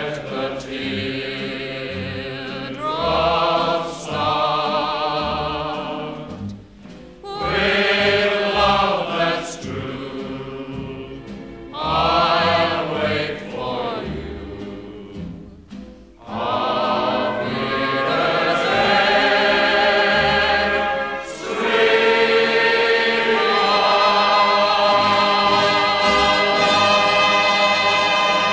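Background music: a choir singing slow phrases with vibrato, building to a long held chord over the last several seconds.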